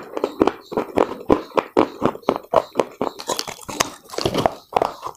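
A person biting off and chewing pieces of a baked clay pot close to the microphone: a rapid run of sharp, crisp crunches, several a second.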